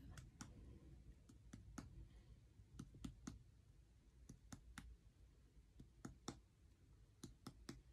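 Faint finger taps of abdominal percussion: a series of soft, irregular clicks, sometimes in pairs, as the abdomen is percussed upward from the lower right quadrant to find the liver's lower border.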